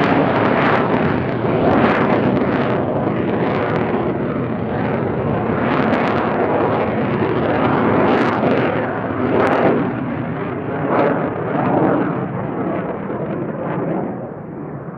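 Jet noise from an F/A-18C Hornet's twin General Electric F404 turbofan engines: a loud, continuous rumble with irregular crackles, growing quieter near the end.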